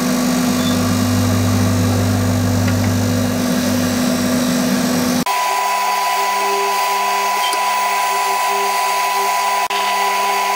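Bench grinder running with a wire wheel brushing scale off a cast iron casting held against it: a loud, steady whir with a rasping hiss. The sound changes abruptly about five seconds in to another stretch of the same work with a higher steady tone.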